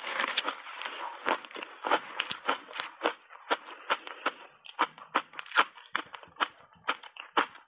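Refrozen shaved ice coated in matcha powder being chewed in the mouth, close to the microphone: a continuous run of sharp, irregular crunches, several a second.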